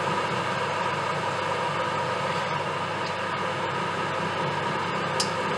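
Steady hum and hiss from the stovetop, where a steel pot of octopus is boiling in its own juice and wine, with a short click about five seconds in.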